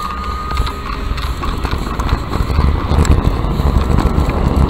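Wind buffeting the microphone of a bicycle-mounted camera while riding, getting louder as the bike picks up speed, with road rumble from the tyres and a few faint clicks over bumps.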